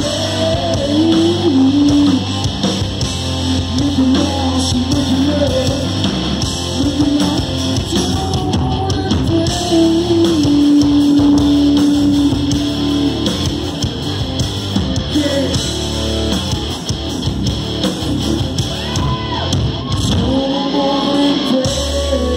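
Live hard rock band playing loud through a venue PA: distorted electric guitars, bass, drums and a singer holding long notes. The low bass cuts out for about a second near the end, then comes back in.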